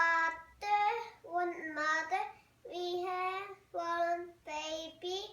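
A young child singing alone without accompaniment: a string of short held notes, each phrase broken by a brief pause.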